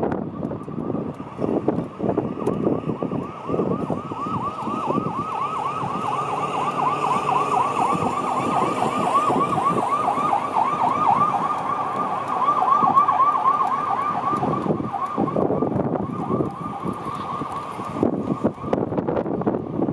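Emergency vehicle siren on a fast yelp, a quickly repeating rise and fall in pitch, growing louder toward the middle and fading out about fifteen seconds in. Gusty wind buffets the microphone underneath.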